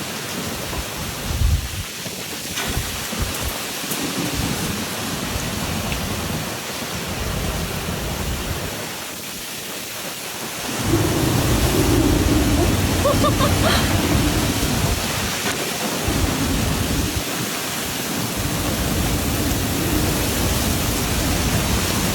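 Storm with heavy rain and strong wind: a steady rush of rain under a deep, uneven rumble of wind. About halfway through, the wind rumble gets louder and deeper and stays that way.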